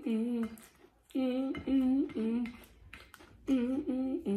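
A woman humming wordless "mm" notes in three short phrases of two or three notes each, with pauses between, a hum of enjoyment while eating.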